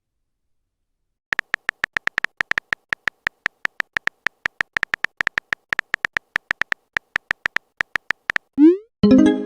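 Phone typing sound effect: rapid, uneven short electronic beeps, several a second, starting after about a second of silence and stopping near the end. A quick rising swoosh and a short pitched sound effect follow.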